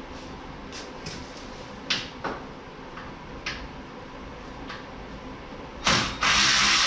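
Scattered metal clinks and knocks of hand tools on the car, the loudest around two seconds in, then near the end a sharp bang followed by a loud, steady power-tool noise starting up.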